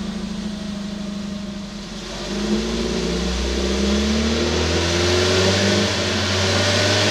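Suzuki Solio (MA15S) 1.2-litre four-cylinder engine heard at the tailpipes through a Monster Sport Type Sp-XX stainless dual-tip muffler: idling steadily for about two seconds, then revved, the exhaust note climbing in pitch and growing louder.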